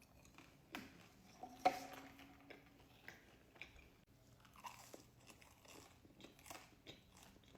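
Close-up chewing of a mouthful of tater tots: soft crunches and wet mouth clicks at irregular intervals, the sharpest about a second and a half in.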